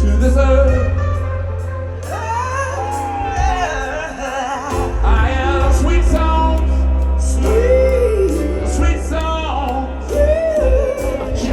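Live rock band performing a slow, gospel-tinged song, with singers holding long wavering notes over a steady bass.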